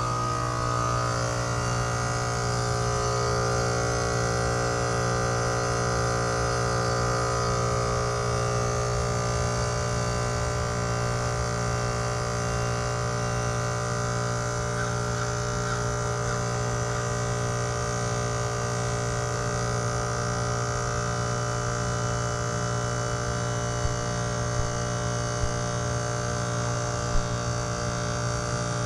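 Trane XR14 heat pump's compressor running through a defrost cycle: a steady electrical hum over a constant hiss, with a few light ticks near the end.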